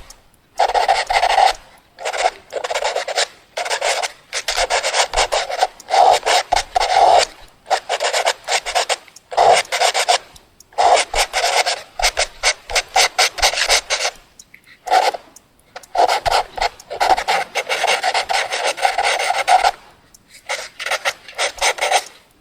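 Fast drawing on paper: a drawing tool scratching rapidly back and forth in quick flurries of strokes, each lasting a second or two, with brief pauses between them.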